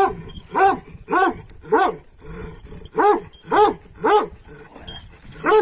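Kangal dog barking during rough play: a run of four short, fairly high barks about half a second apart, a pause, then three more and another near the end.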